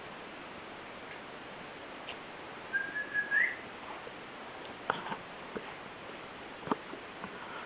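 Six-week-old Bolognese puppy giving one short high whine that rises at the end, about three seconds in. A few scattered light clicks of puppy claws on the hard kitchen floor follow.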